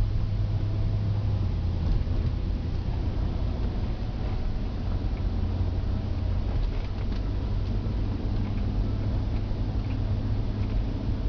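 Steady low drone of a 2007 Cadillac Escalade under way, engine and tyre noise heard from inside the cabin, with a few faint ticks.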